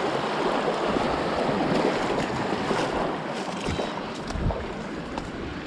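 Creek water running and splashing, with wind buffeting the microphone in a few low bumps.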